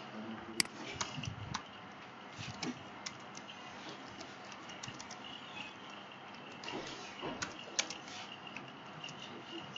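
Computer keyboard being typed on: irregular runs of keystroke clicks with short pauses between them.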